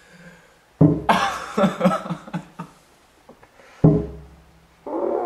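Blows to an elbow resting on a tabletop: a heavy thump about a second in and another just before the four-second mark. After the first thump comes about a second and a half of pitched, wavering sound.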